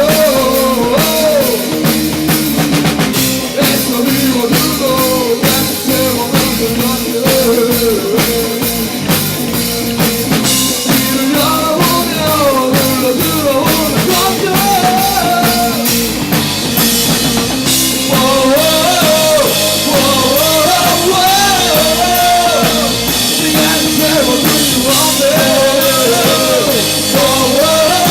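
Rock band playing a song: a singer's voice over a steady drum-kit beat and band accompaniment.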